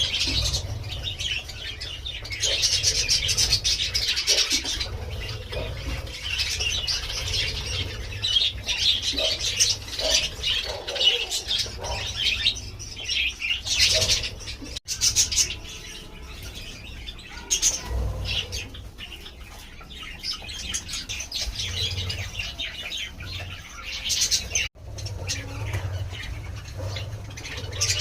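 Pet budgerigars chattering and warbling almost without pause, with sharper chirps at times and some wing fluttering.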